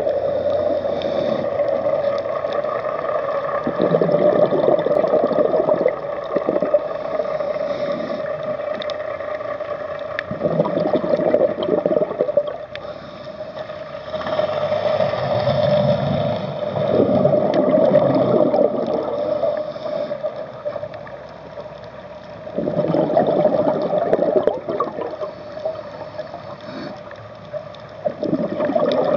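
Underwater sound of a scuba diver breathing, heard through the camera housing: bursts of exhaled bubbles gurgle about every six seconds over a steady hum.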